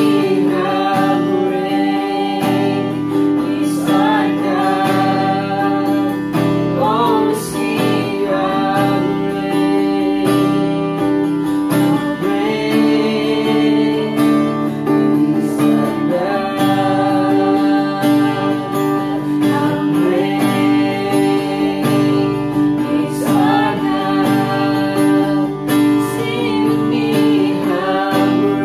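A woman and a man singing a worship song to a strummed acoustic guitar.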